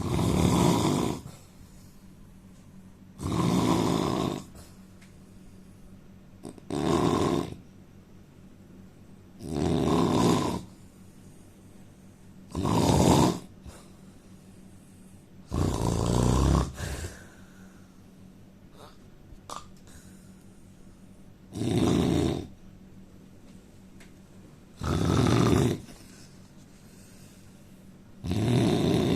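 A man snoring loudly in a regular rhythm, one snore about every three seconds, each lasting about a second, with one longer pause midway.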